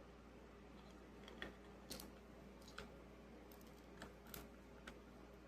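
Near silence with about seven faint, scattered clicks and taps of small tools or parts being handled.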